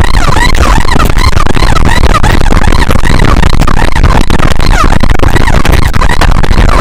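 Several escort sirens yelping rapidly at once, their rising-and-falling wails overlapping in a loud jumble over a heavy low rumble. They are clearing traffic for an ambulance that has no siren of its own.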